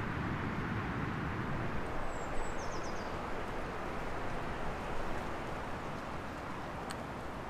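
Strong wind, a steady rush, with a brief run of high bird chirps about two to three seconds in.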